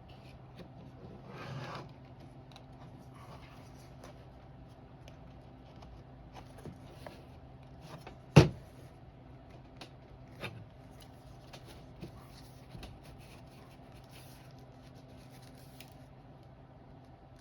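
Light clicks and scrapes of a camper window part being worked into its channel, with one sharp snap about eight seconds in as it seats. A faint steady hum runs underneath.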